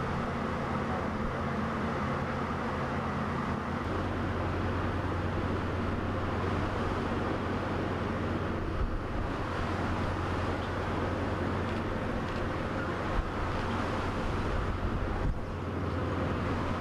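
Steady low drone of an industrial fishing vessel's engine heard on deck, with a wash of wind and sea noise over it; the low hum shifts in pitch about four seconds in.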